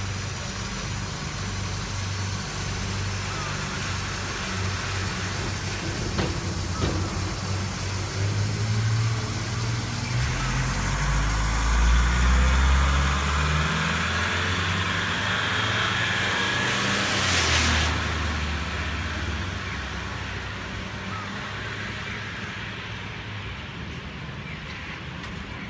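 Road traffic on a rain-wet street: tyres hissing on wet pavement and a box truck's diesel engine rumbling, swelling in the middle as it comes close. A short, loud hiss sounds about two-thirds of the way through.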